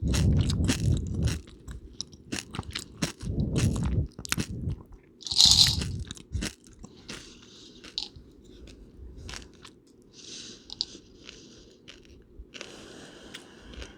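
Close-up crunching and chewing of peanut butter M&Ms, the candy shells cracking between the teeth in quick crisp clicks, with two heavier crunches in the first few seconds. A short loud hiss comes about halfway through, and the rest is quieter chewing and mouth sounds.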